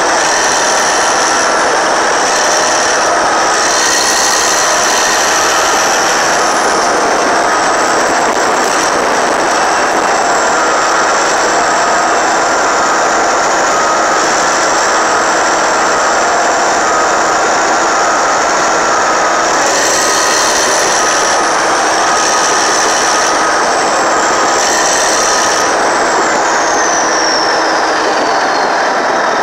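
Caterpillar D8T bulldozer's C15 ACERT diesel running steadily under load as the dozer pushes dirt, with the clatter of its tracks. A high whine rises and falls a few times and slides down near the end.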